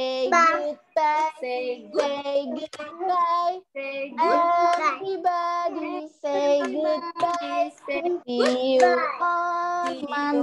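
Women's and young children's voices singing a goodbye song together, heard over a video call.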